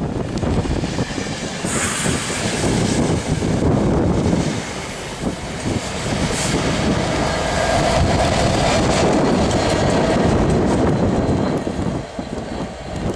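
Locomotive-hauled passenger train with a Class 67 diesel passing close by, its coaches rumbling and clattering over the rail joints as it runs into the loop. A drawn-out squeal comes about eight seconds in.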